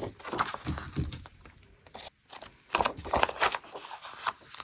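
Paper planner page and sticker being handled and rustled, then scissors snipping through the sticker sheet in a quick run of short cuts in the second half.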